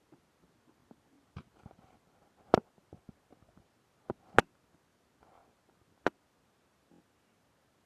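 Slime being handled, giving a few sharp pops and clicks as air pockets burst; the loudest come about two and a half and four and a half seconds in.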